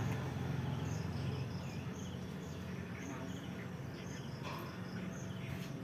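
Insects, likely crickets, chirping: short high chirps repeating over a steady low hum.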